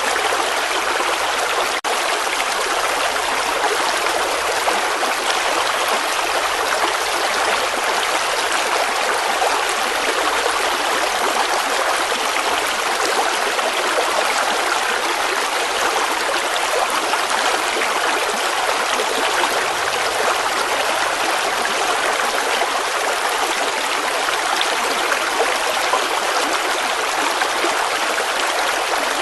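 Running water flowing steadily, an even continuous rush and trickle, with a momentary break about two seconds in.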